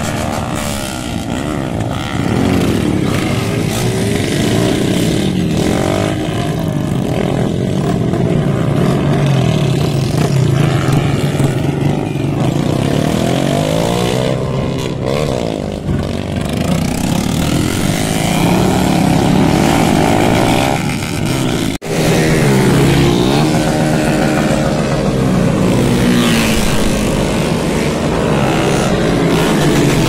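Several street motorcycles revving and riding past close by, their engine pitch rising and falling over and over as they accelerate. The sound cuts out for an instant about two-thirds of the way through.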